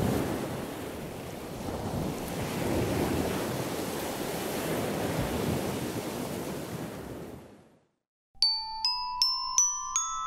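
Rushing outdoor noise of surf and wind on the microphone, swelling and easing, fades out about seven and a half seconds in. After a brief silence comes a short bright jingle of struck, ringing notes, about six quick notes stepping upward in pitch.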